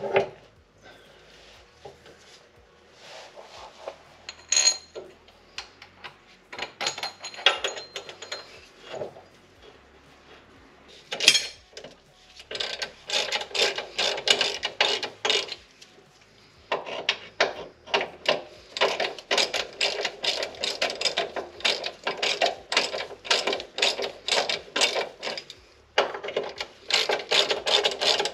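Hand ratchet wrench clicking rapidly as it runs a bolt on the rear differential mount, in three long runs with short pauses, after a few scattered clicks and knocks in the first ten seconds or so.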